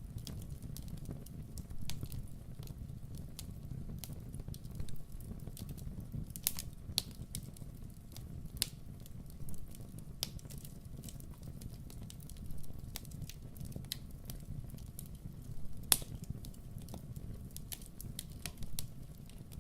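Fire in a fireplace crackling, with irregular sharp pops over a low steady flame rumble; the loudest pop comes about 16 seconds in.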